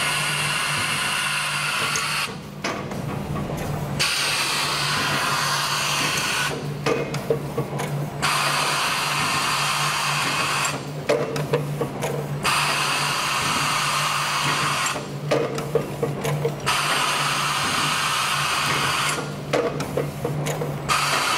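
J2L2 PET bottle blow moulding machine running: a steady hum under a loud hiss of air that breaks off for about a second and a half every four seconds, with short clacks in each break as the machine cycles.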